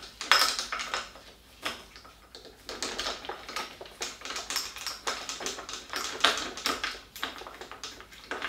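Light metallic clicks and taps of a 5 mm Allen key on the front brake's mounting bolts as the brake is unbolted from the mountain-bike fork, coming irregularly.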